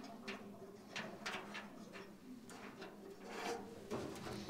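Faint scattered metallic clicks and short scrapes of multi-tool pliers working a square nut off the hood-ornament mount under a steel car hood, with a longer rasp near the end and a faint steady hum behind.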